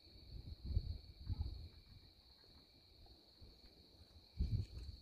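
Night insects trilling steadily in a high, thin, continuous chorus, with bursts of low rumble about a second in and again near the end.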